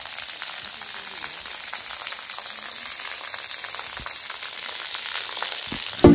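Water gushing from a hose into an almost empty concrete pool, splashing steadily onto the shallow water on the pool floor with an even hiss.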